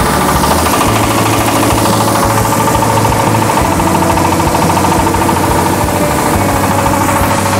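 Single-cylinder diesel engine running steadily under load, driving a husk-free rice mill that is milling paddy into white rice. A fast, even knocking beat from the engine with a steady whine from the mill above it.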